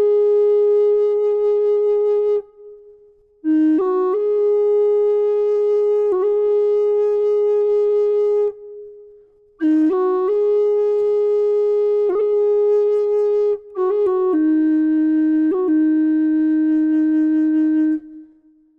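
Solo woodwind melody in four phrases of long held notes, each phrase opening with quick grace-note turns and separated by short pauses. The last phrase settles on a lower held note.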